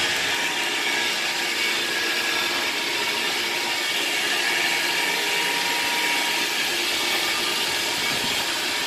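Steady hum and whir of motor-driven machinery running, with several constant tones held throughout.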